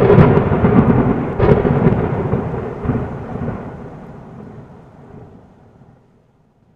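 Thunder sound effect: a sudden clap that rolls on as a rumble, swelling again about one and a half and three seconds in, then dying away before the end.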